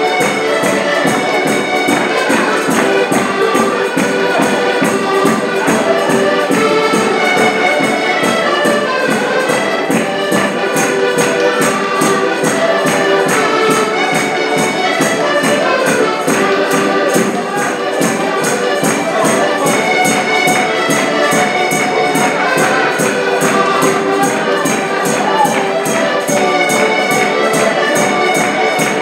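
Live folk music: several accordions playing a lively tune together over a drum keeping a fast, steady beat.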